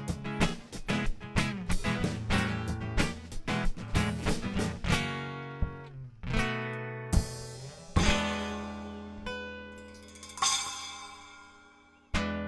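Acoustic guitar strummed with drum accompaniment, playing an instrumental song ending: steady rhythmic strumming for about five seconds, then a few separate struck chords that ring out and fade, and a last short hit near the end.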